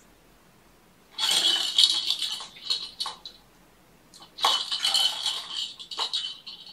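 Plastic balls rattling as they roll around a plastic cat ball-track toy, batted by a kitten. There are two spells of rattling, each about two seconds long, starting about a second in and again about four seconds in.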